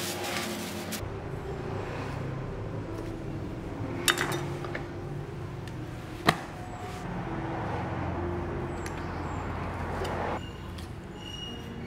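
Raw beef being handled and cut on a wooden chopping block: a plastic bag rustles at the start, then come two sharp knocks about two seconds apart, over a steady low hum.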